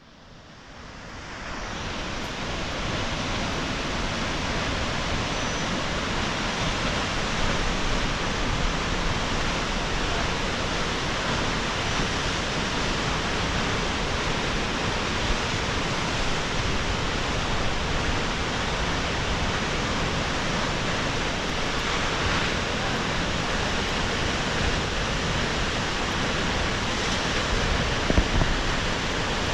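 Steady rushing roar of a waterfall, fading in over the first couple of seconds and then holding even, with a brief louder swell near the end.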